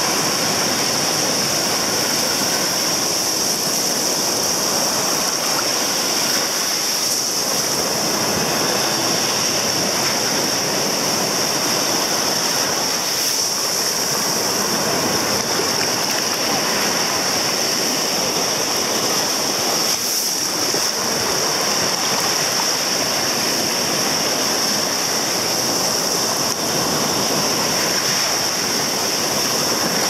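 Black Sea surf breaking and washing up over the sand at the water's edge: a steady, continuous rush of water, with a steady high hiss over it.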